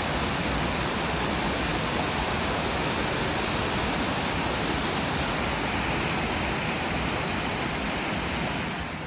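Elakala Falls rushing, a steady, even roar of falling water that fades out near the end.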